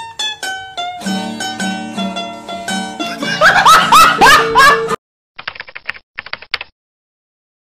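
Plucked-string music, short picked notes that swell into louder swooping glides, stops about five seconds in. Then comes a rapid run of keyboard-typing clicks in two short bursts, a sound effect for on-screen text being typed.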